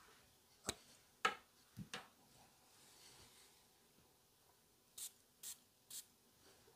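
Handling of a glass Viktor & Rolf Bonbon perfume bottle, with a few light clicks in the first two seconds, then three short hissing sprays from its atomizer about half a second apart onto a paper scent strip.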